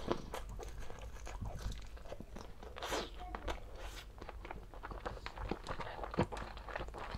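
A person chewing and eating braised pork humba with rice close to the microphone: irregular mouth smacks and clicks of biting and chewing.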